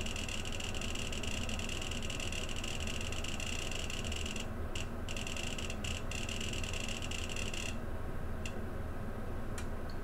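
HDD Clicker board making rapid, hard-disk-like seek clicks in time with the PC's drive-activity LED, standing in for a silent SD-card drive. The rapid clicking breaks off briefly about four and a half seconds in and then mostly stops near eight seconds, leaving a couple of single clicks, over a steady low hum.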